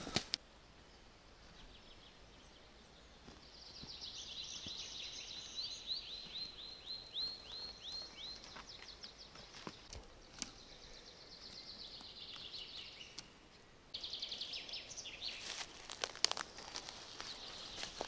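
A songbird singing a long run of quick, repeated high notes from about three seconds in, fading to quieter song. From about fourteen seconds in, footsteps crunch and crackle over dry twigs and pine needles.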